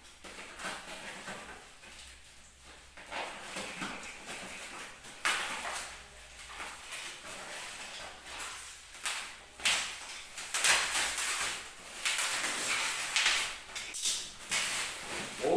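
Cardboard box and packaging being handled and opened by hand: irregular rustling, scraping and tearing, with sharper scrapes and clatters around the middle and toward the end.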